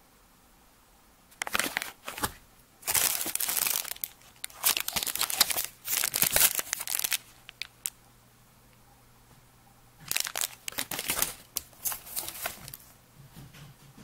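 Plastic packaging crinkling as it is handled and turned over, in two spells about three seconds apart.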